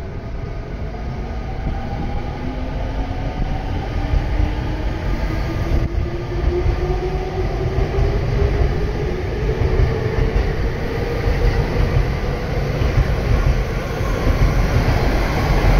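Rinkai Line 70-000 series electric commuter train accelerating: its traction motors give a whine that rises slowly in pitch over the rumble of wheels on track. Toward the end the noise grows louder as an E5/E6 Shinkansen approaches.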